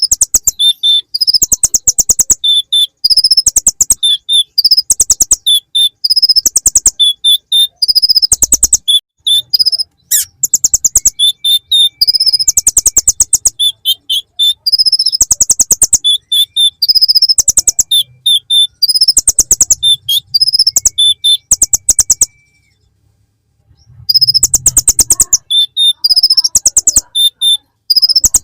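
Konin (kolibri ninja sunbird) singing a song full of mimicked ciblek (bar-winged prinia) phrases. It is a string of high, rapid rattling trills repeated in short bursts, broken by a pause of about a second and a half near the end.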